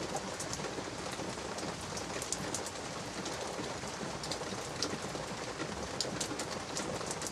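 Steady light drizzle falling, with scattered sharp ticks of single drops landing.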